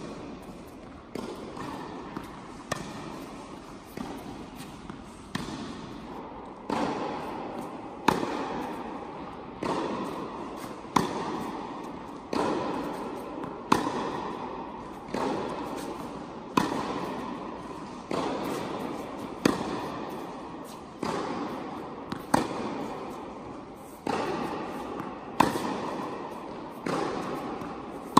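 Tennis ball struck back and forth by rackets in a steady baseline rally, with the ball's bounces, a sharp hit about every second and a half. Each hit echoes through the indoor tennis hall.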